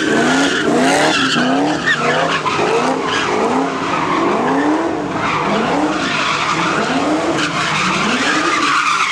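A car doing donuts: its engine revs up and drops back over and over in quick swells while the rear tyres spin and screech on the pavement.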